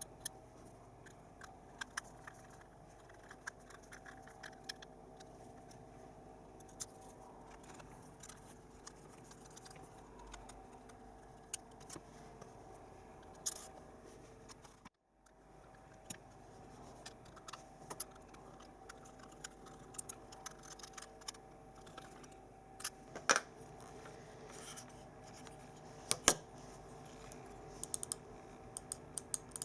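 Scattered small clicks and scrapes of a screwdriver and screws working into the plastic shell of a computer mouse, with a faint steady hum underneath. The sound cuts out completely for a moment about halfway.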